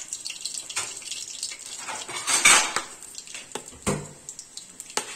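Metal spoon scraping and clanking against a metal cooking pot as cumin seeds sizzle in hot oil, with a louder rush of noise about halfway through and a heavy metallic clank about four seconds in.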